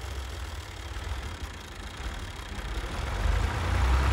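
Farm tractor's engine running while it tills the field with a rear-mounted rotary tiller, a low steady rumble that grows louder in the last second.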